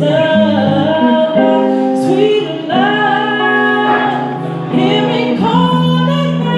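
A woman singing through a microphone, holding long, slightly wavering notes over instrumental accompaniment.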